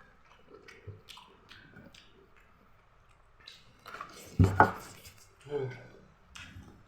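A person eating hot boiled corn, with soft chewing and wet mouth clicks. About four and a half seconds in there is a loud double vocal burst, and a shorter one about a second later.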